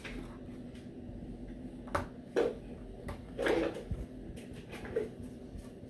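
Quiet room with a steady low hum and a few soft knocks, one about two seconds in, one a little over three seconds in, and one near the end.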